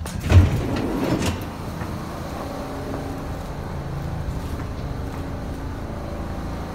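Kawasaki R62 subway car running on the rails, heard from inside the car: a steady rumble with a faint motor hum, and one loud clunk about half a second in.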